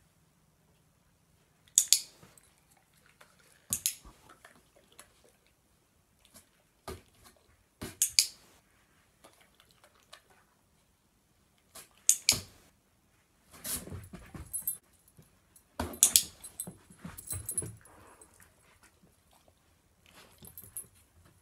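A dog's paws scratching and tapping at a cardboard box in separate short bouts, with quiet between them.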